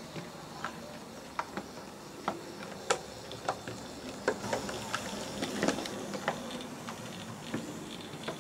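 OO gauge model tank locomotive running on its track: irregular sharp clicks and ticks as its wheels pass over rail joints and points, over a low steady running noise.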